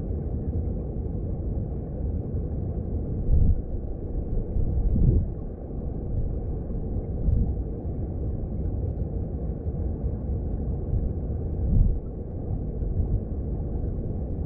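Mountain stream heard underwater: a steady low rumble of flowing water, with brief louder surges about three and a half, five and twelve seconds in.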